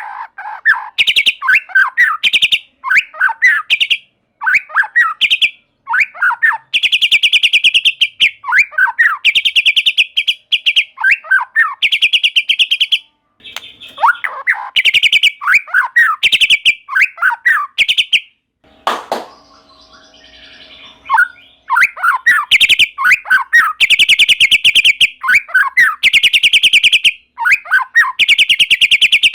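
White-rumped shama singing without let-up: short phrases of falling whistled notes alternate with long, rapid buzzy trills, with a brief pause and a single click about two-thirds of the way through.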